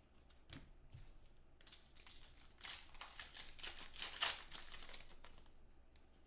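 Wrapper of a 2015 Panini Contenders Football card pack being torn open and crinkled by hand. The crackly rustling builds about a second and a half in, is loudest in the middle, then fades as the cards are handled. Two light knocks come in the first second.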